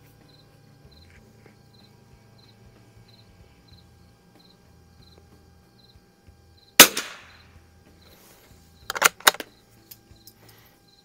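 A single shot from a Winchester Model 52D .22 LR bolt-action target rifle, firing Browning Pro22 40-grain round-nose target ammunition, about seven seconds in, with a short trailing echo. About two seconds later comes a quick cluster of sharp clicks, and crickets chirp faintly at a steady pace throughout.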